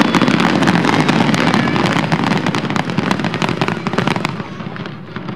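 Aerial fireworks going off in a dense barrage: a fast crackle of many small pops over a low rumble, thinning out and dropping in level near the end.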